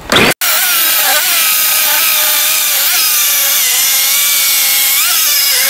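Titan battery-powered electric chainsaw cutting through a log, its motor whine sagging and recovering as the chain bites, with a break just after the start. The chain is blunt and cuts slowly.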